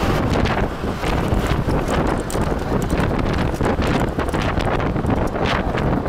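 Road noise heard from inside a moving vehicle: wind buffeting the microphone over a steady low rumble, with many quick knocks and rattles of the vehicle throughout.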